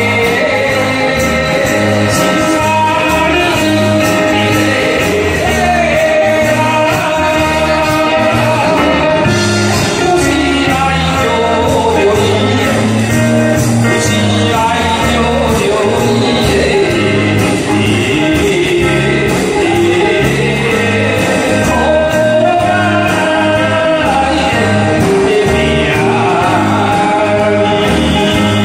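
A man singing through a handheld microphone over amplified backing music with a steady beat.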